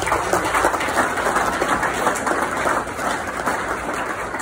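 A room full of people applauding. The dense clapping starts suddenly and slowly dies down near the end.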